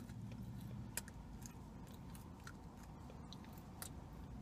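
Crunching and chewing of a thin, crisp sesame seed cookie. A sharp crunch comes about a second in, then a few scattered crunches as it is chewed.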